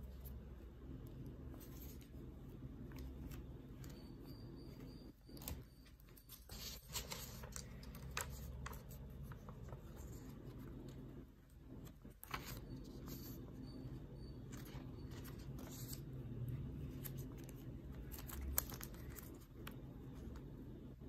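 Paper banknotes and a clear plastic sleeve rustling and crinkling as they are handled and flipped, with scattered light clicks and one sharper tick near the end, over a steady low hum.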